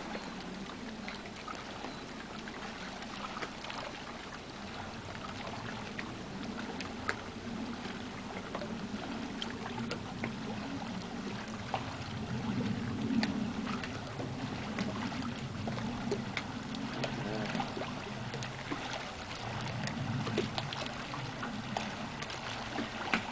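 Lake water lapping and trickling against a boat's hull, with small ticks and a low rumble that swells about halfway through and again near the end.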